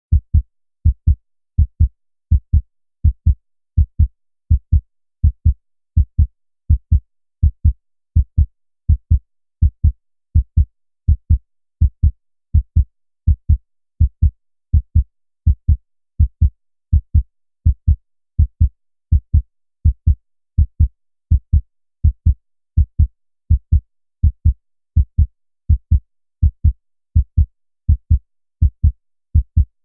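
Heartbeat sound effect: a steady, regular lub-dub, each beat a pair of short low thumps, at about 70 to 75 beats a minute, with silence between beats.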